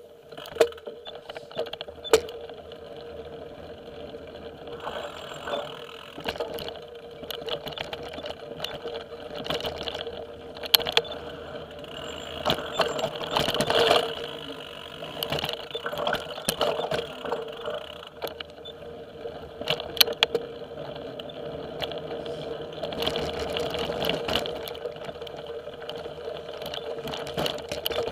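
A bike ridden over a rough dirt trail: frequent knocks and rattles as it jolts over the ground, over a steady hum.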